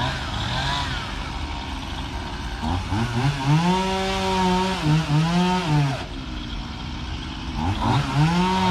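Stihl chainsaw revving up to full throttle about three seconds in, holding high with a brief dip and then dropping back to idle, before revving up again near the end: a crew cutting trees down.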